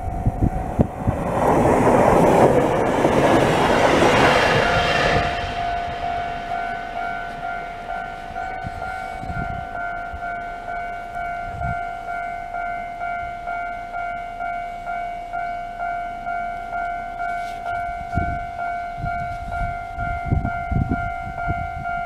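An electric commuter train passes with a loud rush of wheel and rail noise for the first five seconds. After that, a Japanese level crossing's alarm rings on in an even, repeated ding.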